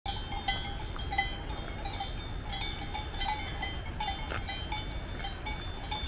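Cowbells on grazing cows clanking irregularly, a few ringing strokes a second, over a steady low rushing noise.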